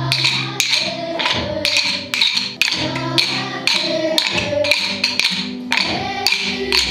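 Music with a steady beat of sharp wooden-sounding taps, about two a second, over held pitched notes.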